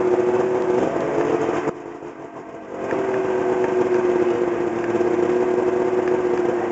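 Yamaha SRX 700 snowmobile's two-stroke triple engine idling steadily. The sound drops away sharply for about a second, a little under two seconds in, then comes back.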